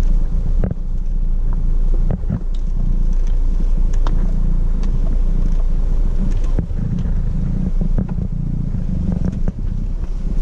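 A vehicle driving slowly over a rough, rocky dirt track: a steady low engine and road rumble with frequent sharp knocks and rattles as it jolts over the stones.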